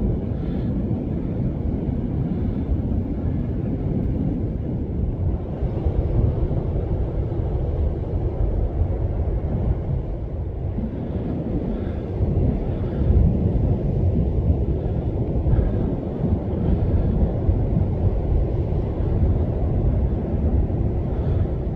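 Wind buffeting the microphone: a continuous low rumble that swells and eases, with no clear tones.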